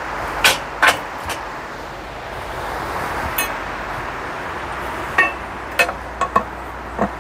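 Sharp metal clanks and knocks, about nine of them at uneven spacing, as the steel bead bar of a Harbor Freight manual tire changer is set onto the centre post and levered around the rim to work a tire's bottom bead off the wheel.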